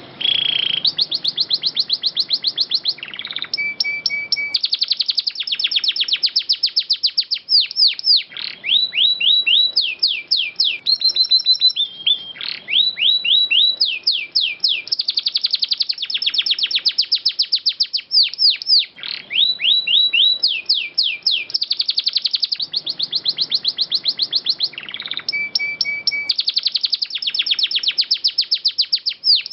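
Domestic canary singing a long, clear rolling song: fast trills and runs of quickly repeated falling notes, with a few short held notes between phrases and only brief pauses.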